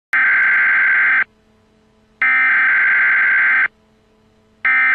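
Emergency Alert System SAME header: harsh bursts of digital data tones, each about a second long with about a second's pause between, repeated three times, the third starting near the end.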